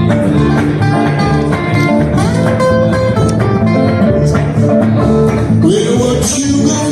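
Live acoustic blues band playing an instrumental break: picked acoustic guitar lead lines with sliding notes over rhythm guitar and bass.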